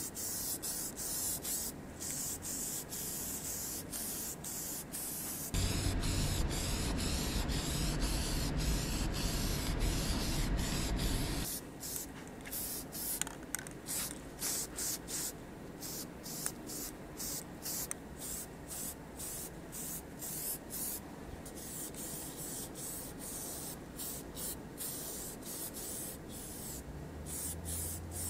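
Aerosol spray can of anti-corrosion primer hissing as it is sprayed in many short bursts, with a louder, steadier spray of about six seconds near the start.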